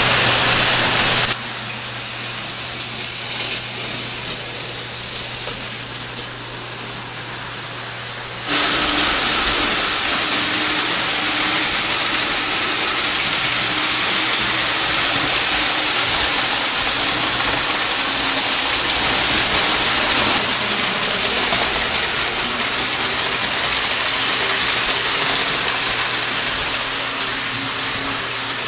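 O-gauge three-rail toy trains running on the layout: a steady rushing rattle of wheels and motors on the track with a low hum underneath. The sound drops suddenly about a second in and comes back louder about eight and a half seconds in.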